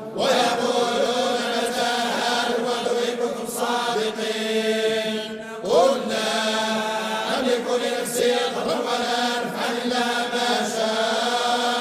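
A group of men reciting the Quran together in slow, drawn-out chant, in the Moroccan collective hizb style, with a brief break for breath about halfway through.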